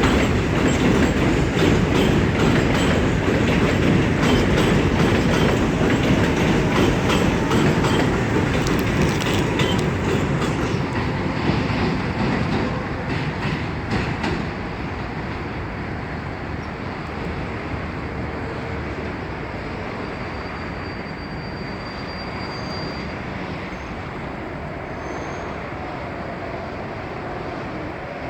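A New York City subway train passing: a loud rumble with rapid clicks of the wheels over rail joints. About halfway through, the clicks stop and the rumble fades as the train moves away.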